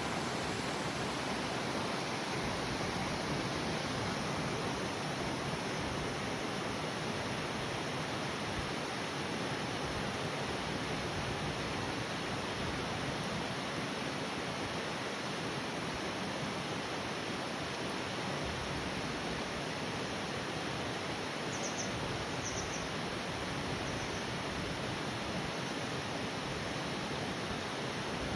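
Waterfall rushing steadily, an unbroken even roar of falling water. A few brief high chirps come in about three-quarters of the way through.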